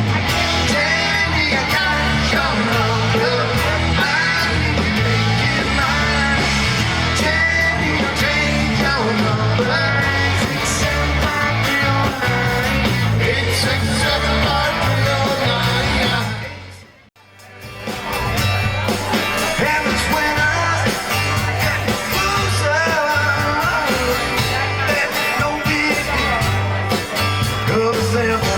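Live band playing country rock with guitar, bass and singing. The music fades out about seventeen seconds in and the next song starts a second later.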